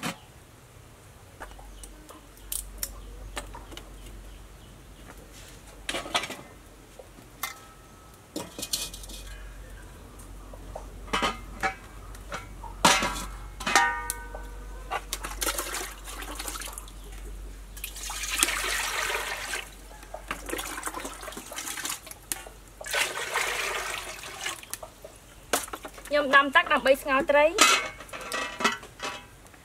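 Aluminium pots, bowls and lids clanking as they are handled and set down, some knocks ringing briefly, with two stretches of rushing, watery hiss.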